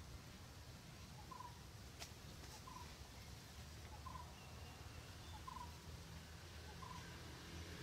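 Faint ambience: a bird repeats a short call note about every second and a half, over a low steady rumble.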